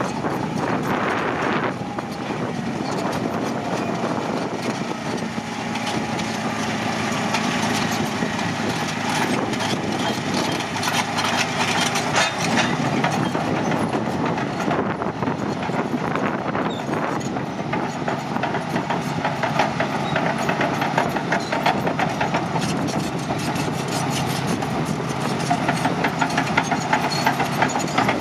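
Caterpillar D9N bulldozer's 3408 V8 diesel running under way, with a dense rapid clatter, likely from its steel tracks, over the engine noise. It gets louder near the end.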